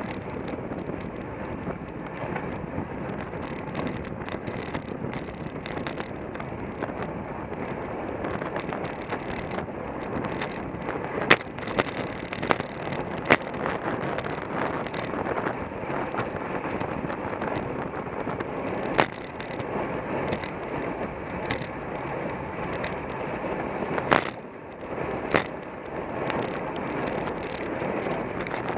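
Road bicycle racing at speed, heard from a camera mounted on the rider or bike: steady rush of tyre and wind noise, with sharp clicks and knocks every few seconds, the loudest about 11 and 24 seconds in.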